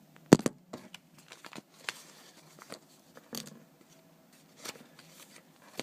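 Hands sorting through the contents of an opened package: scattered clicks, taps and light rustles of small items and packing, with a sharp click about a third of a second in.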